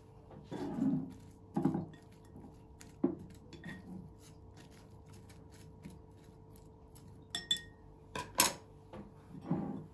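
Wooden cooking chopsticks stirring and knocking against a glass mixing bowl: a string of separate clacks and clinks, the loudest a little past eight seconds in, over a faint steady hum.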